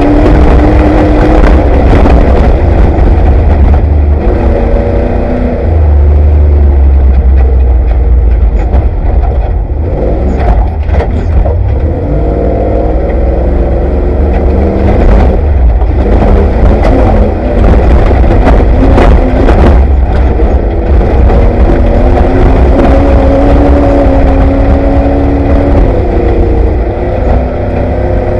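Off-road race vehicle's engine heard from inside the cockpit, running loud and revving up and down at race pace, with road roar and sharp knocks and rattles, several of them around the middle.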